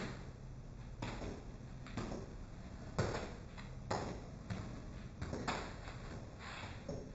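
Freestyle footbag play: soft thuds of the footbag on the sneakers, with sneakers stepping and scuffing on a hard floor, irregular, about once a second.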